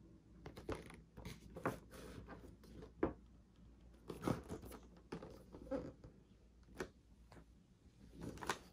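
Hands handling a cardboard and plastic window-box action-figure package: irregular rustles, scrapes and light knocks, a few of them sharper.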